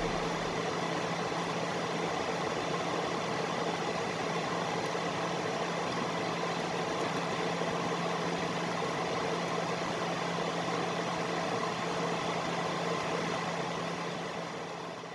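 Steady cabin noise of a jet airliner in flight: an even rush of air and engine noise with a low hum underneath, fading out near the end.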